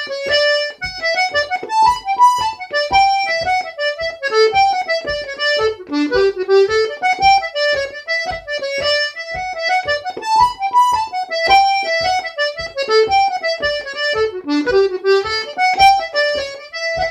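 Two-row button accordion playing a jig: a quick, bouncing melody of short reedy notes over a regular low pulse.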